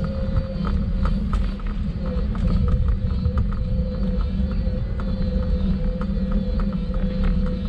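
Heritage electric tram running along street track: a steady low rumble from the wheels on the rails with a steady whine, broken by frequent irregular clicks and knocks.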